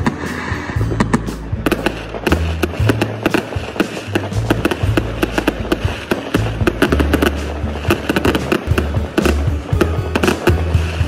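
Fireworks going off in many rapid, irregular crackles and bangs, over music with a deep bass line.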